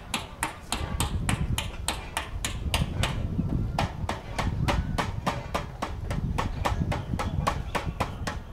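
Rapid, evenly spaced knocking, about four to five sharp knocks a second, over a low rumble.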